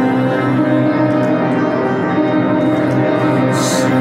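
Slow instrumental music of sustained, held notes, with a short hiss swelling up briefly near the end.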